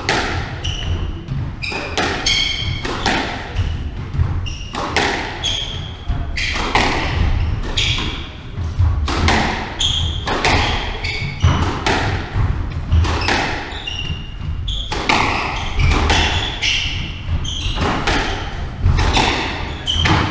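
A squash rally: the ball cracking off racket strings and the court walls in a quick, uneven beat of one or two hits a second, with short high squeaks of court shoes on the wooden floor between hits.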